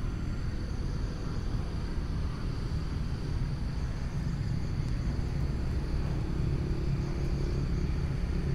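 Steady low outdoor rumble with no distinct events, along with a faint, steady high-pitched drone.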